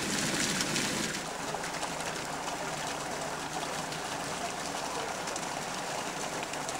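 Steady rush of running water at the water-ballasted cliff railway car, a little louder for the first second and then even.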